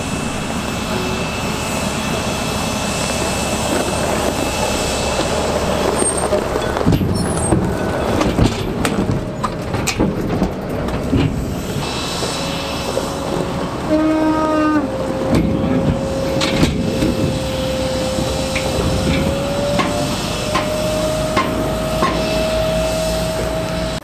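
Stryker eight-wheeled armoured vehicle driving over gravel: its diesel engine running, with the crunch and knock of the tyres on the stones. About halfway in, a steady whine sets in and rises slightly near the end.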